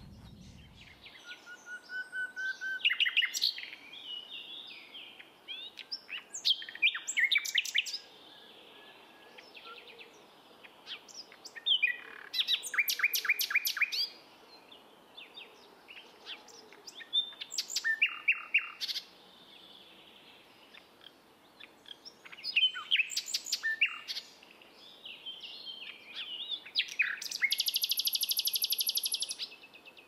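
Common nightingale singing in separate phrases every few seconds, with pure whistles, quick runs of repeated notes, and a long dry rattling trill near the end.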